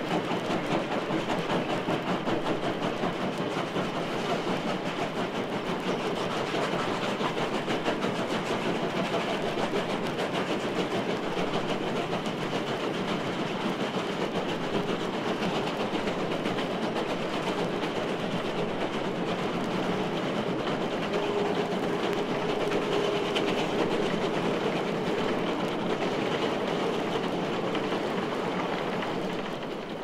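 Steam locomotive running, with a steady, rapid beat of exhaust and rail noise that begins to fade out near the end.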